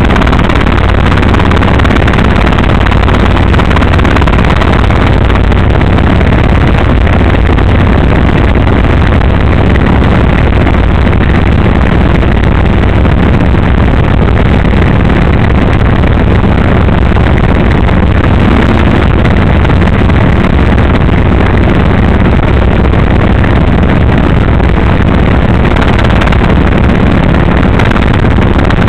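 Small piston helicopter in flight, heard from inside the cockpit: engine and rotor running as a loud, steady low drone that never lets up.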